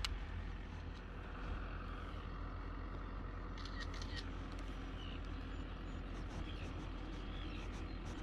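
Steady low outdoor rumble, with a sharp click at the very start and a few light clicks about halfway through.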